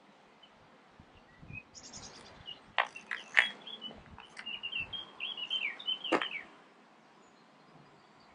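Small songbirds chirping and twittering in short, high notes, with a quick run of warbling notes in the middle and a few sharp, loud ticks among them. The chirping stops shortly before the end.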